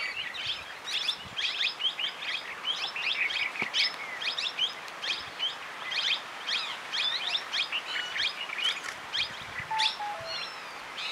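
A busy chorus of small wild birds: many rapid, overlapping high chirps all through, with three short, lower whistled notes about ten seconds in.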